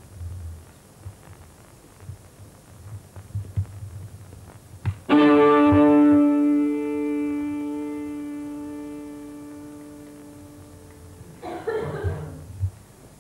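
A single note or chord struck on a musical instrument, ringing out and fading slowly over about six seconds. Soft knocks come before it, and a brief rustling scuffle comes near the end.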